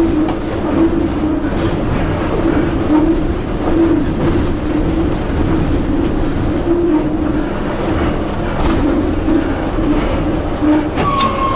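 Cab running noise of an EP1 electric locomotive under way: a steady hum with faint rail clicks. A short electronic beep sounds near the end.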